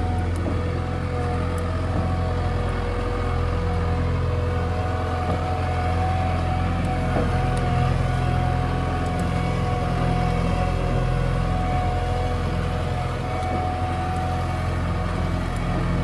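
JCB backhoe loader's diesel engine running steadily as the machine drives slowly on dirt, a deep even drone with a steady whine over it.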